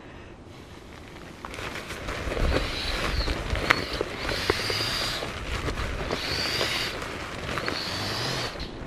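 Sea to Summit Ether Light XT sleeping pad being inflated with a nylon pump sack: crinkling fabric and small clicks, with a rush of air about every second and a half as the sack is pressed down.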